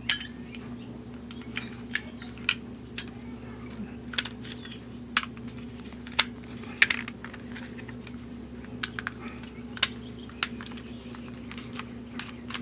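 Irregular clicks and taps of a hard plastic Makita 18V lithium-ion battery pack being handled and worked on, over a steady low hum.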